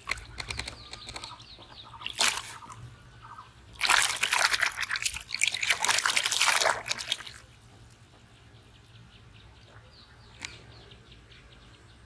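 Live fish thrashing in a plastic basin of water. There is a brief splash about two seconds in, then a hard burst of splashing for about three and a half seconds in the middle, which settles to faint drips and small water sounds.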